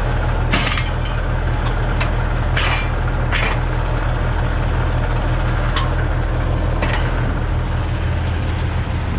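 Semi truck's diesel engine idling steadily, with about six sharp knocks over it spread through the first seven seconds.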